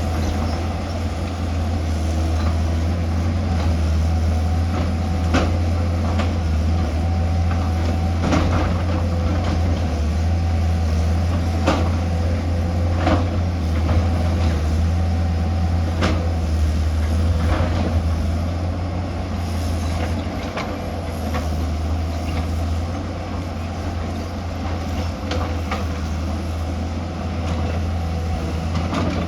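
Excavator's diesel engine running steadily under load, with a faint hydraulic whine and scattered sharp knocks and clanks from the machine at work.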